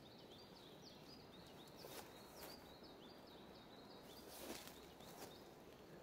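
Faint birdsong: a small bird repeating short high notes, about three a second, that stop about three and a half seconds in. A few soft snaps or steps are heard during and after the song.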